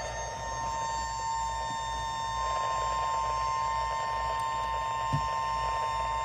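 Emergency alert attention tone on a NOAA Weather Radio broadcast: one steady, high-pitched tone held without a break over a low hum, with a brief bump about five seconds in. It signals that a warning message is about to be read, here a severe thunderstorm warning.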